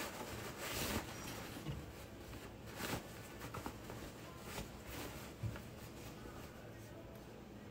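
Ankara fabric and lining rustling as the sewn skirt panel is handled and pulled right side out, with short swishes, the strongest about a second in and near three seconds.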